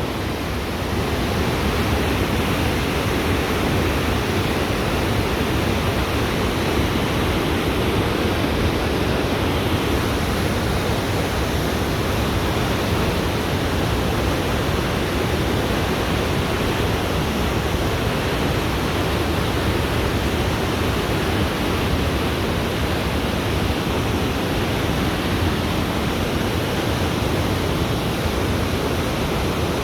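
Steady rushing water, an even roar that holds constant throughout, like a fast-flowing river or weir.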